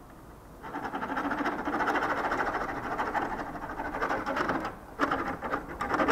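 Screwdriver turning a licence-plate screw, giving a rapid, dense clicking rattle for about four seconds, then two shorter bursts near the end.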